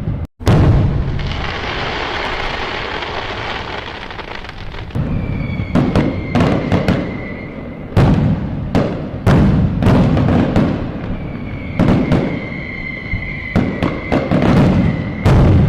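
Fireworks going off: a quick series of sharp bangs and deep booms, with a spell of dense crackling about a second in and whistling tones sounding twice, around the middle and near the end. There is a brief dropout just after the start.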